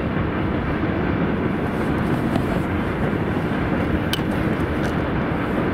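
Steady rumbling noise of wind buffeting the microphone, mixed with a long freight train of hopper cars rolling across a rail bridge in the distance.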